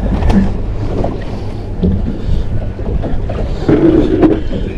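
Wind rumbling on the microphone aboard a small fishing boat, with a few light knocks from handling gear on deck.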